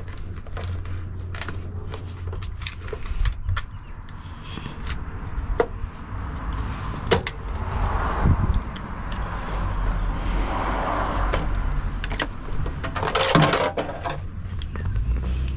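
Scattered knocks and clicks of hands-on work inside a car body, with a few short rustling bursts, over a steady low rumble.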